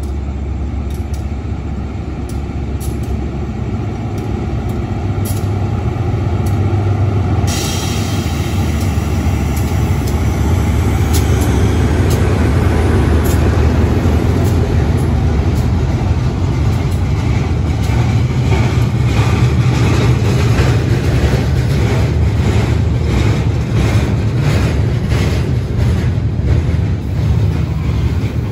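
Diesel locomotive engine running with a deep, steady rumble beside a train. About seven seconds in, a sudden hiss of air starts and fades, and in the second half the train's wheels clack regularly over the rail joints.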